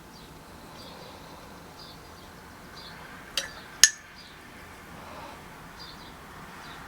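Two sharp clinks about half a second apart, the second louder, as a paintbrush knocks against a hard glass or ceramic painting vessel.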